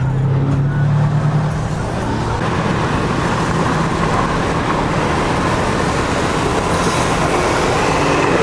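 2008 Corvette C6 Z06's LS7 V8 accelerating, its note rising over the first second or so, then a steady rush of road and wind noise as the car cruises at speed.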